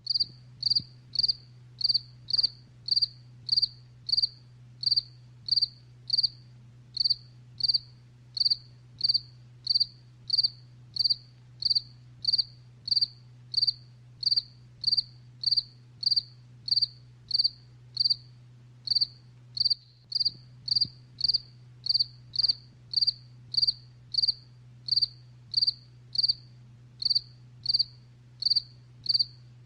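Jangkrik genggong cricket chirping: an even series of short, high-pitched chirps, a little more than one a second.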